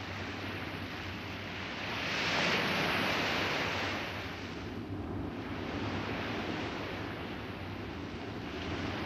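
Rushing noise of surf breaking on a beach, with wind rumbling on the microphone. It swells loudest about two to four seconds in and again near the end.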